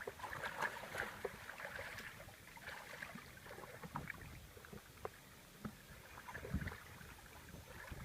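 Faint, scattered small water splashes and drips, with irregular clicks.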